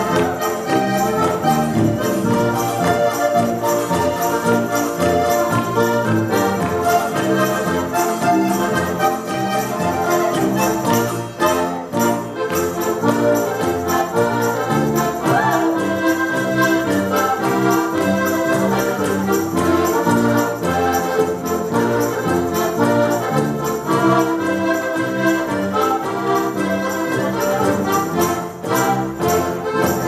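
Ensemble of button box accordions playing a tune together, many reeds sounding at once over a steady beat.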